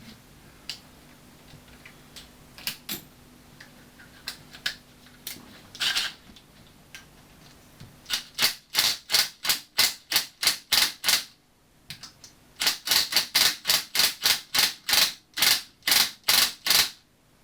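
Hammer tapping a steel nut onto the end of a seized engine mounting bolt. A few scattered taps come first, then two quick runs of sharp metallic strikes at about four a second, each lasting a few seconds.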